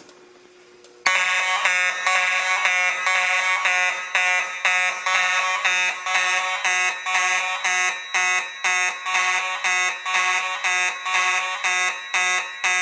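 Fire alarm horns set off by a manual pull station, starting suddenly about a second in and sounding loudly with an even pulsing beat of about two a second.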